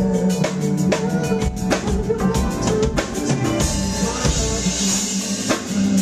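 Live neo-soul band playing: a drum kit keeps a steady beat of kick and snare hits over held bass and chord notes, and cymbals swell in the second half.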